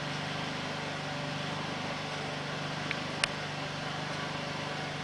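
Firewood crackling in a wood stove's firebox as a freshly lit fire catches: two sharp cracks about three seconds in, the second louder, over a steady hiss and low hum.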